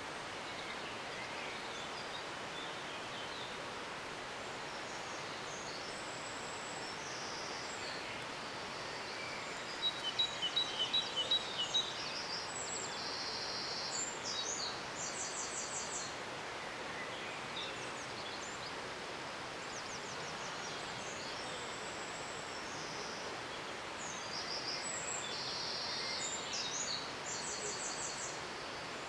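A songbird singing high, varied phrases over a steady background hiss, repeating a similar run of phrases twice. It includes a quick series of about eight sharp chirps around ten seconds in, the loudest part of the sound.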